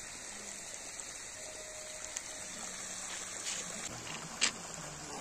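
Shallow water trickling and flowing steadily through a freshly filled ditch, with one brief sharp click about four and a half seconds in.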